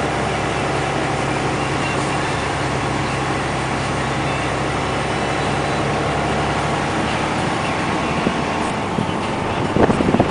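Diesel engine of a loaded UD Quon heavy dump truck running steadily under load, with a cluster of sharp knocks or rattles near the end.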